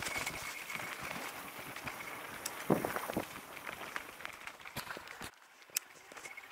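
An e-mountain bike rolling over a dirt forest trail: steady tyre and riding noise with frequent clicks and rattles from the bike and trail. There is a louder knock about three seconds in, and the noise drops suddenly a little after five seconds.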